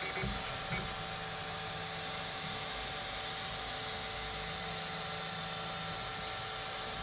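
Formbot Troodon CoreXY 3D printer running: a steady hum from its fans, with the stepper motors whining in stretches as the toolhead moves across the bed. A couple of brief knocks come in the first second.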